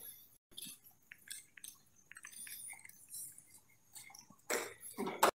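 Footsteps on a hard floor with scattered light clicks and clinks of gear and handling while walking, and a louder brief rush of noise near the end.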